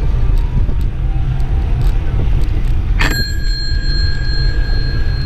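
A bicycle bell struck once about three seconds in, ringing on with a clear high tone that fades slowly. Steady wind rumble on the microphone from riding runs underneath.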